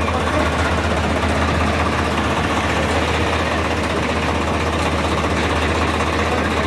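Swaraj 855 FE tractor's three-cylinder diesel engine idling steadily.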